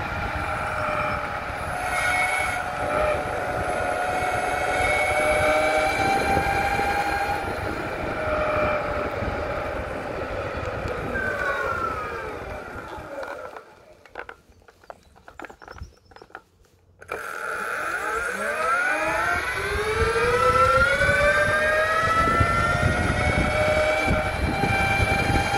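SYL-08 V3 electric mountainboard's motors whining while riding, the whine falling in pitch as the board slows to a stop, then after a few seconds of near quiet climbing again as it speeds away, over a low rumble.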